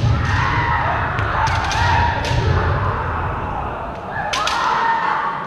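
Kendo fencers shouting long, drawn-out kiai while bamboo shinai crack against each other and against armour, several sharp strikes bunched in the first two seconds and two more near the end, over thuds of stamping feet on the wooden floor.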